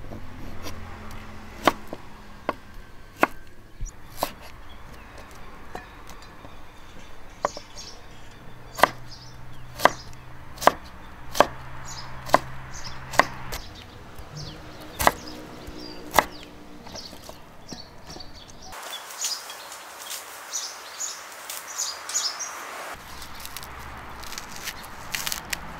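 Cleaver chopping bamboo shoot strips on a wooden cutting board: a dozen or so sharp knocks at uneven intervals. Near the end, dry fibrous husk being torn from a coconut by hand.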